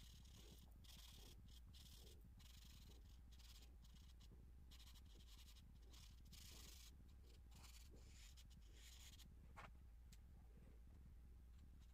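Faint charcoal strokes scratching and rubbing on drawing paper, one short stroke after another, over a steady low hum. The strokes stop near the end, and a single click follows.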